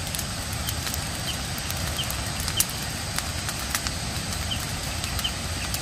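Dry vegetation burning in a field fire, crackling with irregular sharp pops over a steady low rumble.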